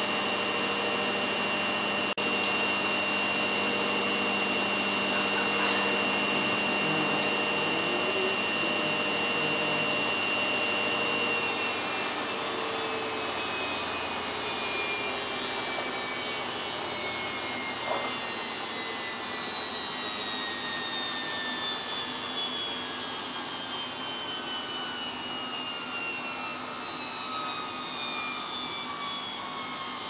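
Samsung WF8804RPA washing machine's drum spinning at 800 rpm during the rinse's interim spin, with a steady motor whine. About twelve seconds in, the whine starts falling steadily in pitch and gets a little quieter as the spin winds down and the drum slows.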